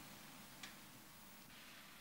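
Near silence: faint steady hiss of room tone, with two faint ticks.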